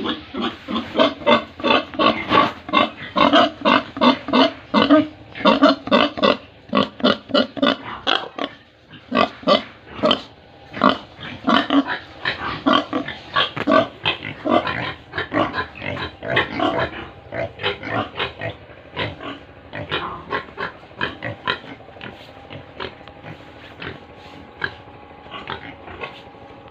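Domestic pigs grunting in a rapid run of short calls, two or three a second. The calls are loudest in the first half and get softer and sparser over the last third.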